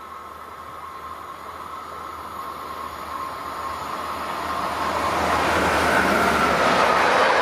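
Electric locomotive hauling a long train of loaded car-carrier wagons, approaching and passing close by. It grows steadily louder, with a steady high tone over the rising rush of the train, which is loudest near the end.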